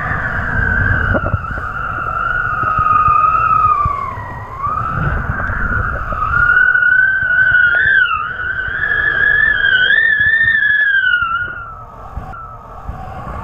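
Wind whistling over a kite line and a camera mounted on it: a clear whistle that slides up and down in pitch as the kite's speed through the air changes, and dies away near the end. Under it, low wind buffeting rumbles on the microphone.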